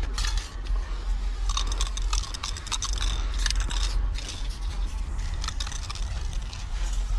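Aerosol spray-paint can hissing in repeated bursts as paint goes onto a brick wall, heaviest about one and a half to four seconds in, over a steady low rumble.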